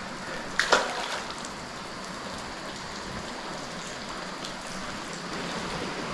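Steady hiss of rain falling on the creek, with one brief sharp sound under a second in.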